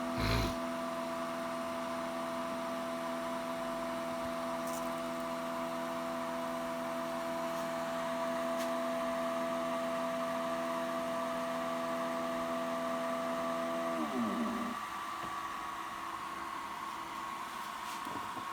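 Stepper motors of a DIY CNC router driving an axis at steady speed during homing: a steady whine of several even tones that glides down in pitch and stops about fourteen seconds in. A fainter hum and a thin high whine carry on after it, with a single click near the start.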